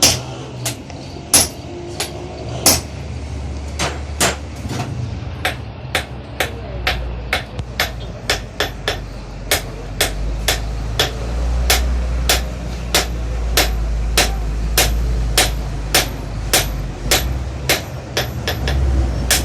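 Blacksmith's hammer striking metal on an anvil, a long run of sharp ringing blows, irregular at first and then steady at about two a second, over a low steady rumble.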